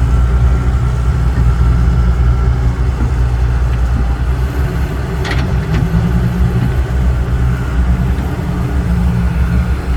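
Dump truck's diesel engine running steadily at low revs, which the listener takes for a six-cylinder. A short sharp clank comes about five seconds in.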